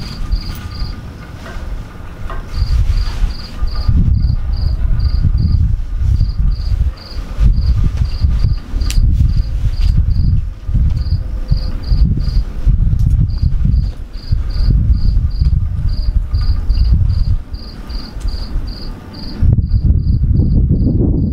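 A cricket chirping in a steady run of short, high chirps, about three a second, over a loud low rumble that rises and falls.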